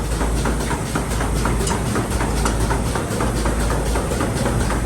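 Farm machinery running steadily: a low hum with rapid, irregular clicking over it.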